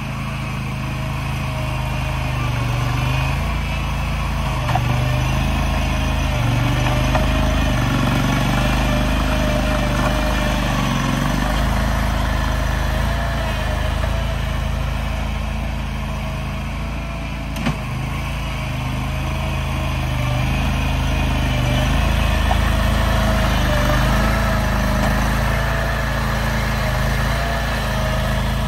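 An engine running steadily, its pitch wavering slowly up and down, with one short knock a little past the middle.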